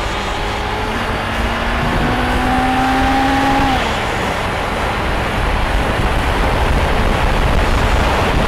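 Honda CB750's air/oil-cooled inline-four engine revving up under acceleration, its rising whine cut off by a gear change a little under four seconds in. After that a steady rush of wind and road noise dominates.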